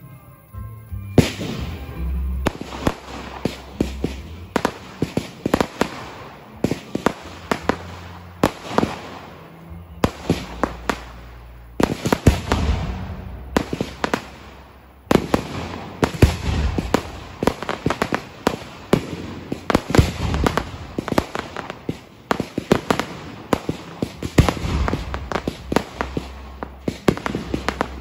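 Fireworks going off in quick succession: a dense run of sharp bangs and cracks, many followed by a short fading crackle. It starts about a second in, just after some music.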